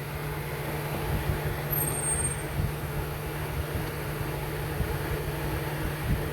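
A steady low mechanical hum runs throughout, under irregular low knocks and rustling from hands working the induction tubing loose at the throttle body.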